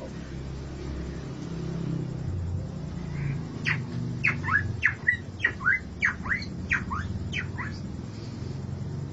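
A man imitating a bird call by mouth: a run of about a dozen quick, falling whistled chirps, some in pairs, starting a few seconds in and lasting about four seconds.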